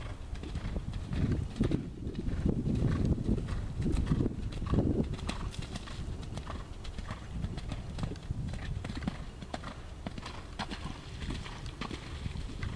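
Hoofbeats of a Thoroughbred horse cantering on sand arena footing: a steady rhythm of dull thuds, loudest between about one and five seconds in.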